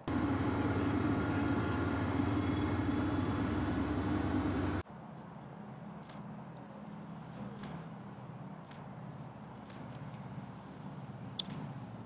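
The Grumman Goose's twin Pratt & Whitney R-985 Wasp Junior radial engines running as the amphibian comes in low to land. The sound is loud and steady for about the first five seconds, then drops suddenly to a quieter steady drone with a few faint clicks.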